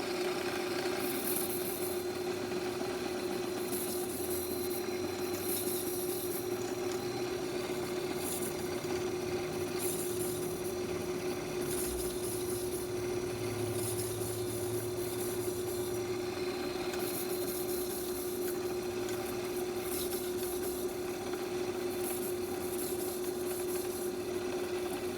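Stark No. 4 lathe running steadily, turning a piece of brass: a constant hum with a high hiss that comes and goes.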